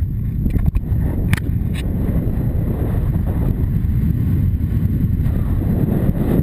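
Wind buffeting the microphone of a helmet camera on a rider moving at speed on horseback, a steady low rumble. A few sharp clicks come in the first two seconds.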